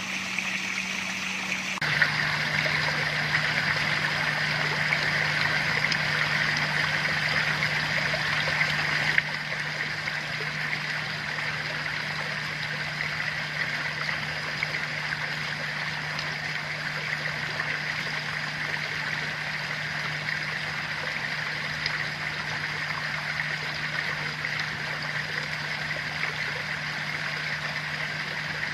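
Water running and splashing steadily, with a low steady hum underneath. The sound changes abruptly about two seconds in, and again, a little quieter, about nine seconds in.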